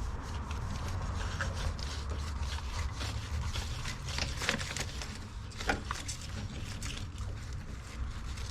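Small clicks and scrapes of plastic and metal door-handle parts being handled and fitted inside a car door, over a steady low rumble.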